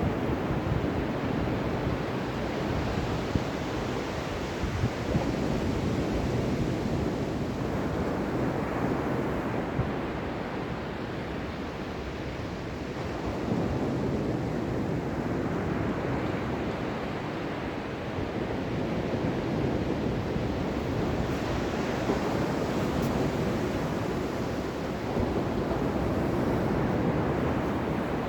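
Ocean waves washing onto a shore, a continuous rushing surf that swells and eases slowly every several seconds.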